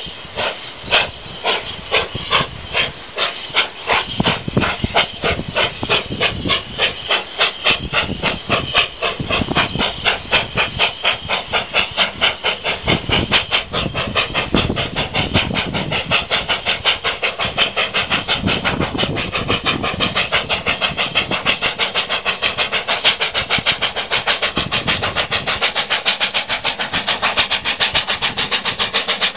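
Manning Wardle 2-6-2 tank steam locomotive working hard uphill, its exhaust barking in sharp, loud beats with a steam hiss. The beats quicken from about two or three a second to a fast, near-continuous chuff as it gathers speed.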